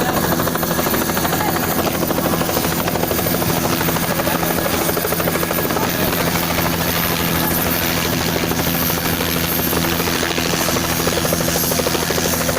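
Helicopter running steadily, a fast, even rotor chop over a steady engine hum.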